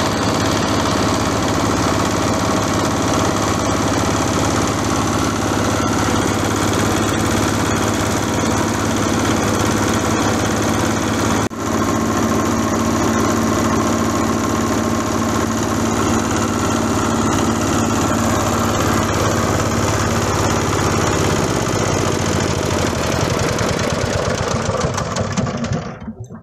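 Engine-driven oil palm frond chopper machine running steadily at a constant loud level. The sound dips briefly about eleven seconds in and cuts off abruptly near the end.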